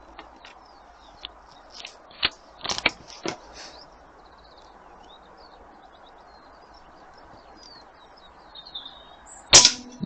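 AP900 air rifle firing one shot near the end: a single sharp crack with a short humming ring after it. A few lighter clicks and knocks come earlier, and birds chirp faintly behind.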